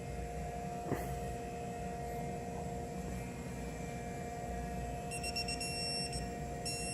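Digital torque wrench beeping in quick high-pitched pulses about five seconds in and again near the end, signalling that the lug nut has reached the set torque of 79.5 foot-pounds. A single click about a second in, over a steady low electrical hum.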